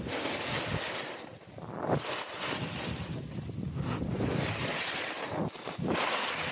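Snowboard edges carving across groomed snow, a scraping hiss that swells with each turn, about one every two seconds, with wind buffeting the microphone.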